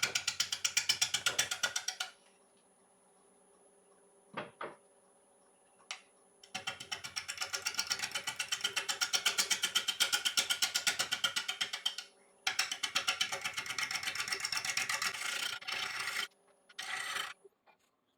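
Bowl gouge making an interrupted cut on an out-of-round, dry ash bowl blank spinning on a lathe. The tool strikes the high side of the wood once each turn, giving a rapid clatter of about eight hits a second. It comes in bursts with a few seconds' pause between them, and a steady hum carries on in the gaps.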